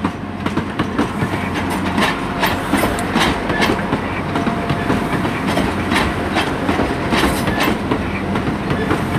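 Arriva Trains Wales Class 175 diesel multiple unit running in close past the platform as it arrives, a steady rumble with regular clicks of its wheels over the rail joints, about two a second.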